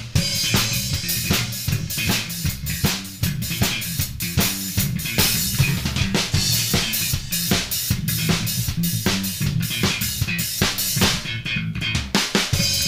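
Drum kit and electric bass guitar playing an improvised funk groove: fast, busy kick, snare and cymbal hits over a running bass line. The cymbals drop out briefly a little before the end.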